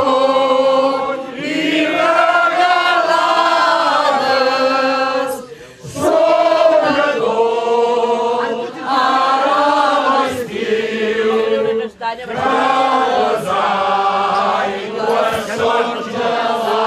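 A mixed group of men and women singing together without instruments, in long held phrases with short breaks about six and twelve seconds in.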